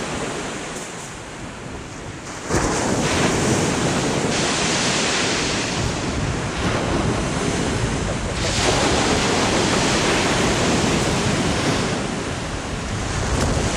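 Sea waves breaking and washing up a shingle beach. The level jumps about two and a half seconds in, then swells and eases with each wave, with wind rumbling on the microphone.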